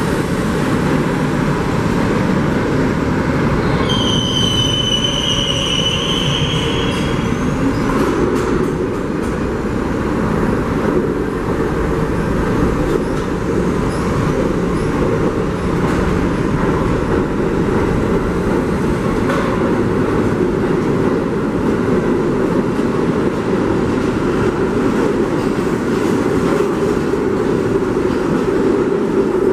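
R32 subway train running along the station platform with a steady, loud rumble of wheels on rail. A high-pitched wheel squeal sounds for about three seconds, starting about four seconds in.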